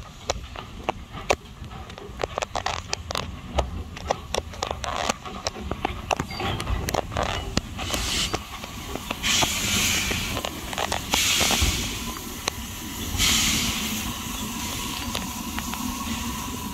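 Andrew Barclay 0-6-0 saddle-tank steam locomotive rolling slowly into the platform, with a run of sharp clicks and clanks from its wheels and motion. From about eight seconds in come four loud bursts of steam hiss, each about a second long, then a steadier hiss as it draws alongside.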